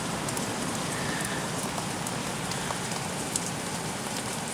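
Heavy rain falling steadily in a thunderstorm downpour, a constant hiss of rain with scattered drops ticking.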